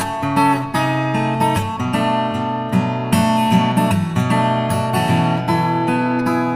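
Background music led by strummed and plucked acoustic guitar.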